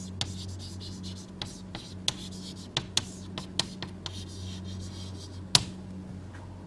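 Pen writing on paper: a dozen or so short, irregular scratches and taps as words are written out, over a steady low electrical hum.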